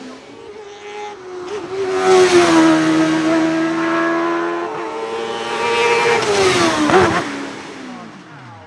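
Hillclimb race car accelerating hard up the hill, its engine note climbing and holding as it comes nearer. About seven seconds in it passes close by, and the pitch then falls away as it recedes.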